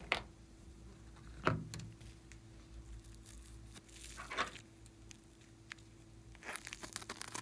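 A few separate soft knocks and rustles as a plastic bag is handled, then dense plastic crinkling and snipping as scissors cut into the bag near the end.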